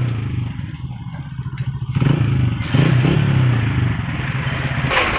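Motorcycle engine running at a low idle, its note growing louder about two seconds in, with some faint clatter.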